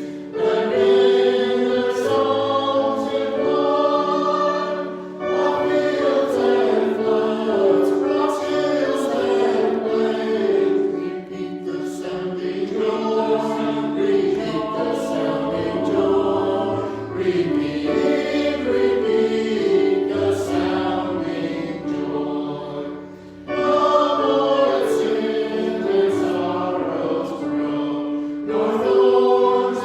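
A choir singing, in sustained phrases with short breaks between them.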